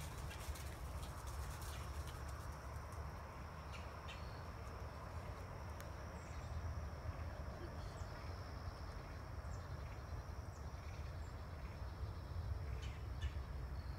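Outdoor ambience: a low wind rumble on the microphone, with a faint steady high-pitched insect drone and a few short chirps or clicks scattered through it.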